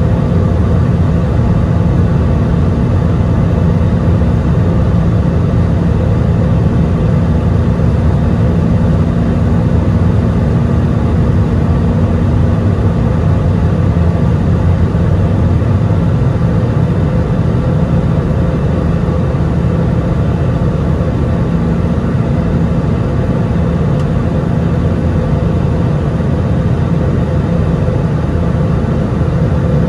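Airbus A320-200 cabin noise during the climb: a steady low rumble of the jet engines and airflow heard from inside the cabin, with a few faint steady tones above it.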